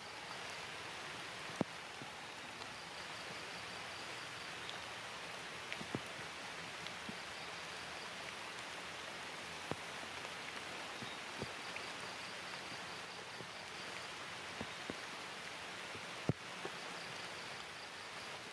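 Rain falling steadily on the tree canopy, with single heavier drops striking close by every second or two. A faint high pulsing trill comes and goes several times behind it.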